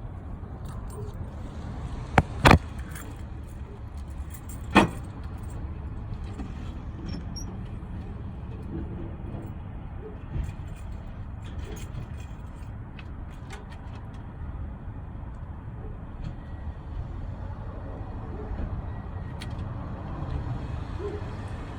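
A car running, heard as a steady low rumble, with three loud sharp clicks about two and a half and five seconds in and fainter, irregular ticks later.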